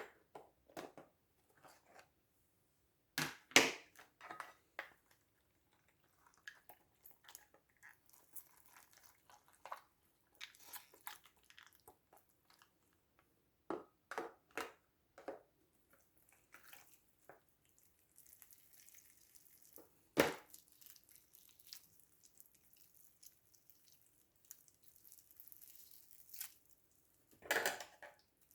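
Handling noises of slime-making: irregular taps, knocks and clicks of containers and utensils, a few of them louder, with a soft hiss for several seconds in the second half.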